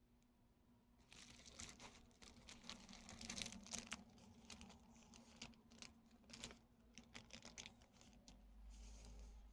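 Faint crinkling and crackling of packaging being handled, starting about a second in and thinning out near the end.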